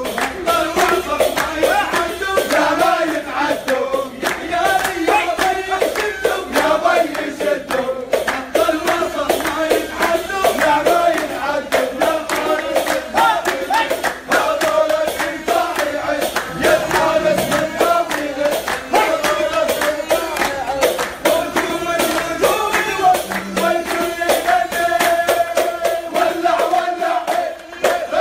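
A group of men singing a celebratory song together, with rhythmic hand clapping.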